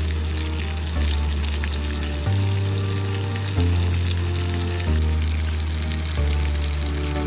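Tomato-and-masala gravy with curry leaves sizzling in oil in a nonstick frying pan, a steady frying hiss. Under it runs background music with a deep bass note that changes about every second and a quarter.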